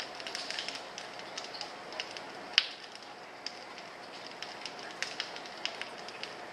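Scattered sharp clicks and ticks at irregular intervals, several a second, with one louder crack about two and a half seconds in, over a faint steady hiss and hum.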